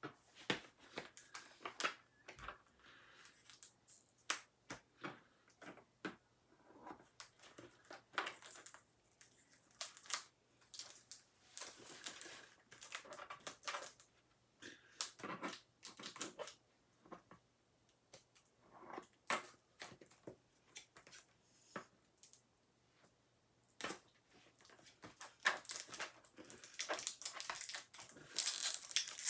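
Scissors snipping at plastic packaging while hands crinkle and work at it: irregular sharp snips and clicks, with short stretches of crackling plastic.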